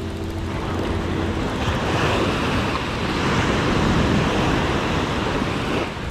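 Surf breaking and washing up a sandy beach, a steady rush that builds through the middle and drops off near the end.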